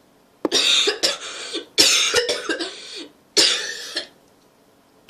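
A person coughing hard in three harsh bouts, each with several sharp hacks: a phlegmy cough, brought on while trying to keep down a swallow of melted butter taken as a cough remedy.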